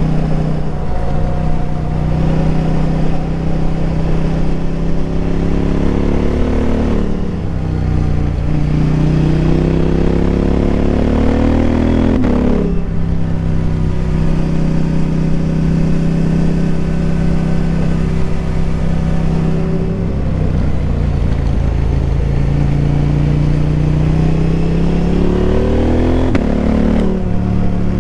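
KTM 890 Adventure R's parallel-twin engine under way through a Wings slip-on exhaust with the dB killer removed. Twice its pitch climbs steadily under throttle and then drops sharply at a shift or roll-off, with steadier running between.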